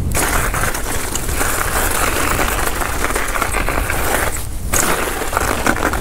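Rock Machine Blizzard enduro mountain bike riding down a frozen dirt trail: the tyres rattle and click over hard, icy ground under a steady low rumble, with a short lull about four and a half seconds in.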